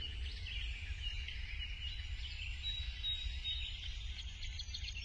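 Birds chirping: many short, repeated high calls, with one briefly held whistle-like note about three seconds in, over a steady low rumble.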